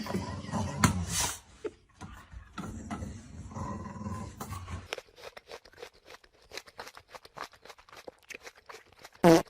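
A dog vocalizing, with low sliding calls at the start, then a few seconds of quick light clicks, and one short loud call near the end.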